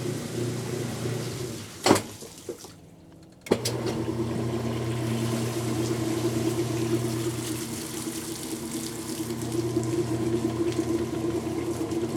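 Kenmore top-loading washing machine running and pumping out its water, its lid switch bypassed, with a steady motor hum and water rushing. About two seconds in it clicks and stops. About a second and a half later it clicks and starts again.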